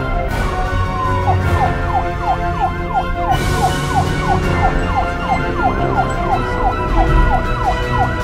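Police-style siren sound in fast, repeated falling sweeps, starting a little over a second in, over background music with steady held notes and a heavy low end.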